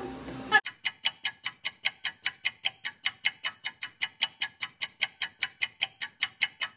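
Fast, even ticking, about five ticks a second, starting about half a second in with dead silence between ticks: a ticking-clock sound effect laid over the footage.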